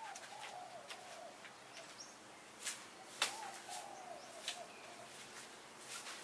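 A dove cooing: a phrase of several short rising-and-falling notes, repeated about every three seconds. Scattered sharp clicks and knocks from a folding camp chair being carried and set down on grass, the loudest about three seconds in.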